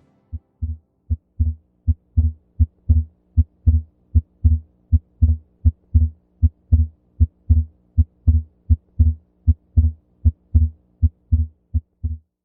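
Recorded heart sounds as heard on auscultation: paired low beats at a steady rhythm of about 80 a minute, over a faint steady hum. The second heart sound is split, and the split does not change with the phases of breathing: pathological, fixed splitting of the second heart sound.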